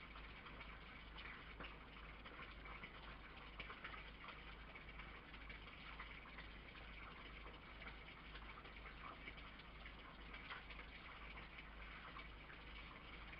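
Red fox eating from a metal food tray: faint, irregular clicks and smacks of chewing and licking over a steady hiss.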